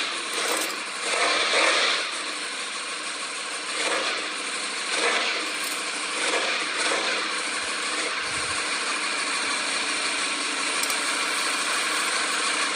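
Ducati Panigale V4S's 1103 cc V4 engine idling steadily just after a cold start. The engine sound swells briefly about a second and a half in and again about five seconds in.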